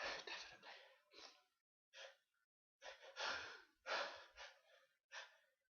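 A sneezing fit: a run of short, breathy gasps and sharp exhalations, about seven in quick succession, the build-ups and false starts of sneezes.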